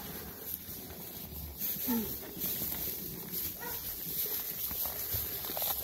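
Sheep in a straw-bedded pen: one sheep gives a short low call about two seconds in, amid shuffling and rustling in the straw.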